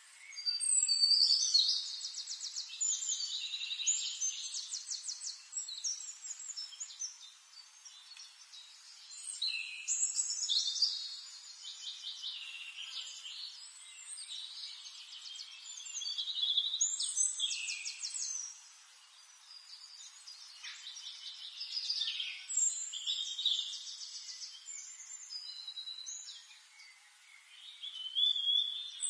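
A songbird singing: high phrases of rapid trills and whistles, each lasting a few seconds, with short pauses between them.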